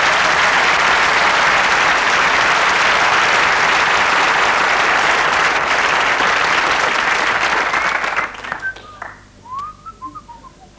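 Studio audience applauding, dense and steady, then dying away quickly about eight seconds in.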